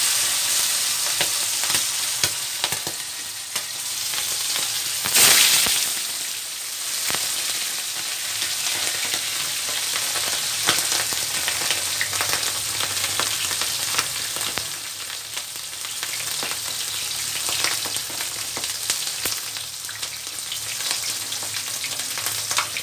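Pieces of yellowfin tuna frying in hot oil in a wok, a steady sizzle with sharp spitting crackles throughout. About five seconds in the sizzle surges briefly louder as a second piece of fish goes into the oil.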